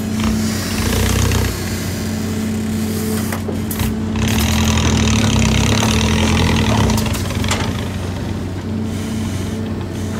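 Hydraulic excavator's diesel engine running with a steady hum, working harder and louder for about three seconds in the middle as the arm and bucket move.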